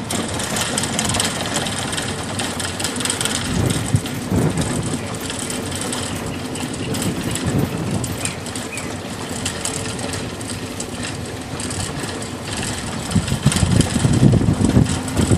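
Engine and road noise of a slow-moving open-sided vehicle, steady throughout, with the low rumble growing louder in the last couple of seconds.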